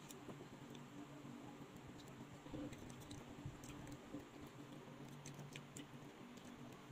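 Faint eating sounds: scattered small clicks and taps of wooden chopsticks against a plastic bowl and the food, with quiet chewing, over a steady low hum.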